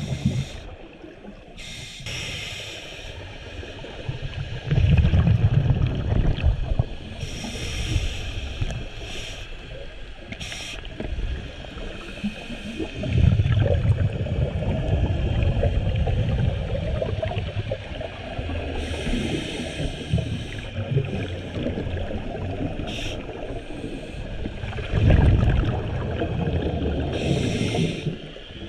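Scuba diver breathing through a regulator, heard underwater: a hiss on each inhale, about four in all a few seconds apart, with bursts of bubbling exhaust on each exhale in between.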